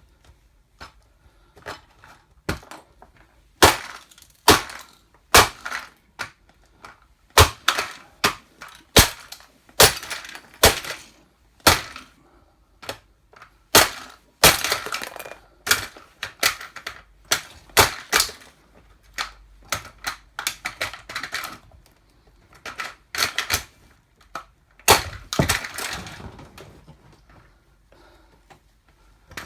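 A toy car cracking and crunching under 8-inch platform high heels: irregular sharp cracks and snaps, with longer grinding crunches midway and near the end.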